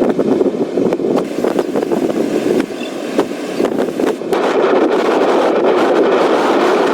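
Hurricane winds buffeting the microphone in strong, uneven gusts. About four seconds in it grows louder, with a higher hiss added.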